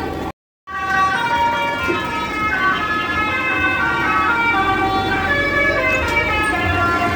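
A bus's multi-tone 'telolet' horn playing a tune of held notes that step from pitch to pitch, several tones sounding together. The sound drops out for a moment near the start.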